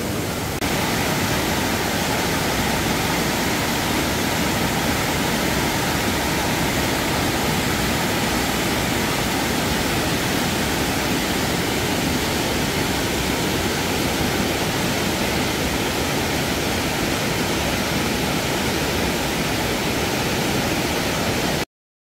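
Flood-swollen mountain stream rushing over boulders in a steady wash of whitewater, running high after heavy rain. The sound cuts off abruptly just before the end.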